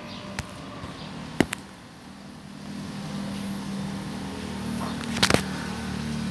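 Clicks and knocks of hands and parts being worked inside a car door during a window regulator repair: a sharp knock about a second and a half in and a quick cluster of clicks near the end, over a low steady hum that swells about halfway through.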